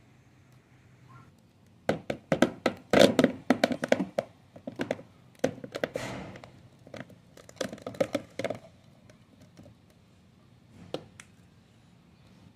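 Small strawberry jelly candies dropping into a clear plastic tub: a quick, uneven run of sharp clicks and knocks for several seconds, then two more single taps later on.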